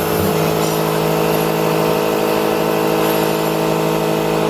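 Pressure washer running steadily, its jet hissing onto a light bulb held underwater in a plastic kiddie pool. The motor and pump give a steady hum under the spray.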